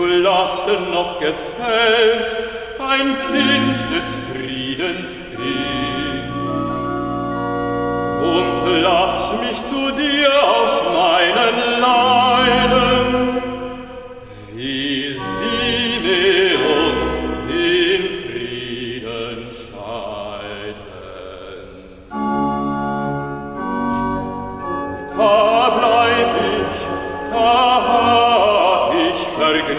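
A bass voice singing classical sacred music, accompanied by an organ continuo, with a solo violin taking part in the later half.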